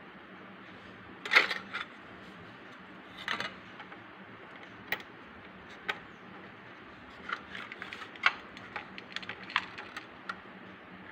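Light plastic clicks and taps as small parts of a homemade model combine harvester are handled and fitted by hand. They come irregularly, the loudest about a second in, with a quicker run of small clicks in the last few seconds.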